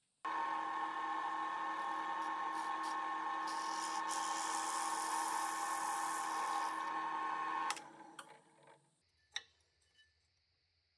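An electric power tool's motor running at a steady high whine that starts abruptly. A harsher hiss rides over it for about three seconds in the middle. It then winds down and fades about eight seconds in.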